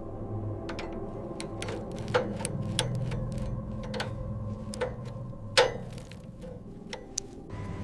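A scattered series of irregular sharp clicks and ticks over a low steady hum, the loudest click about two thirds of the way through.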